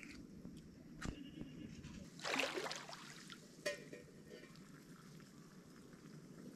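Feet wading into a shallow river: one loud splash a little over two seconds in, with a sharp knock shortly before and after it, over a low steady sound of running water.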